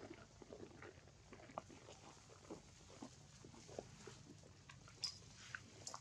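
A young macaque chewing food held to its mouth: faint, scattered small clicks and crunches, with one sharper click about five seconds in.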